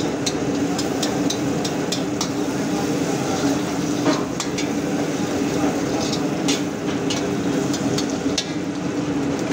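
Sliced green capsicum frying in oil in a steel wok, with a metal ladle stirring and scraping against the wok in scattered sharp clicks and taps. A steady hum runs underneath.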